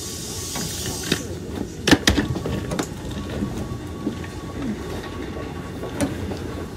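Hankyu 7000-series electric train: a hiss of air cuts off about a second in, followed by a cluster of sharp knocks and clunks and one more later, over the car's steady low rumble.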